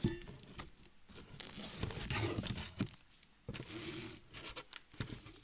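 Packaged Teeccino coffee-alternative bags rustling and crinkling as they are handled and lifted out of a cardboard box, with light scrapes and knocks against the cardboard. The rustling is irregular and loudest about two seconds in.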